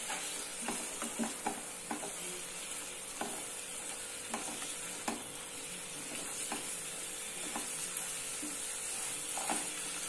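Mutton pieces and onion-chilli masala frying with a steady sizzle in a non-stick pan while a silicone spatula stirs them. Soft taps and scrapes of the spatula against the pan come irregularly, about one a second, closer together in the first two seconds.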